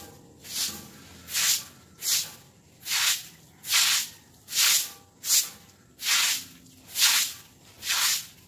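Stick broom sweeping wet concrete, pushing water and soggy leaves in about a dozen regular swishes, one every three-quarters of a second or so.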